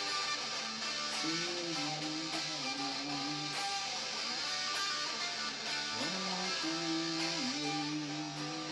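Guitar music: strummed guitar with a melody line that slides up into its notes twice.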